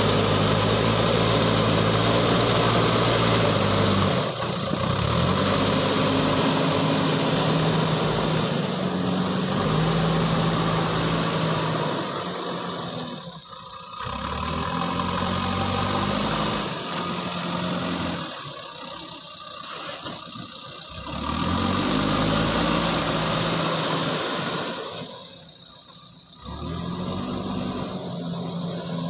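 JCB backhoe loader's diesel engine working under load, its pitch repeatedly rising and falling as it revs up and drops back. It eases off briefly about halfway through, again around two-thirds of the way, and near the end.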